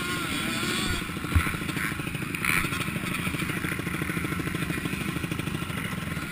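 Motocross bike engine running steadily at a low, even speed, with a thud about a second and a half in and a brief clatter about two and a half seconds in.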